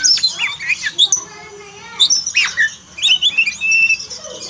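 Songbird singing a fast, varied song of whistled notes that sweep up and down, mixed with harsher chattering notes, in short phrases with brief pauses. This is a 'masteran' birdsong recording of the kind played to oriental magpie-robins to coax them into singing.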